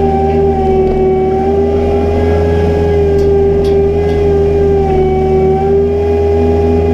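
Mini excavator running steadily: a diesel engine's low drone with a loud, constant high whine.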